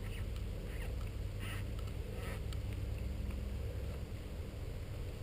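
Steady low rumble of wind on the microphone, with a few faint, short rustles.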